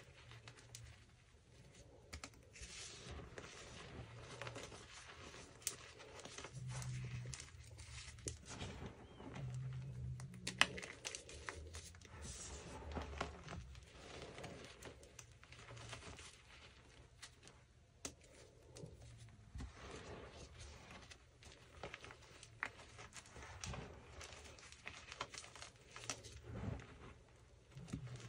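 Bare hands squeezing and crushing loose powdered gym chalk with small chunks in it: a soft, dry crunching full of tiny crackles, with one sharper crack a little before the middle.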